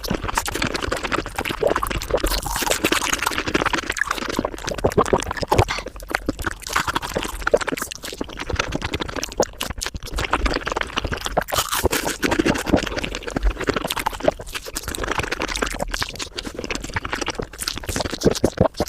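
Mukbang eating sounds sped up to five times speed: wet chewing and mouth noises run together into a dense, unbroken crackle of rapid clicks.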